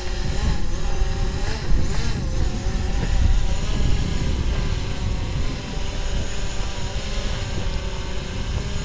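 Camera drone hovering close, its propeller whine wavering up and down in pitch as it is brought in to be caught by hand, over a heavy low rumble.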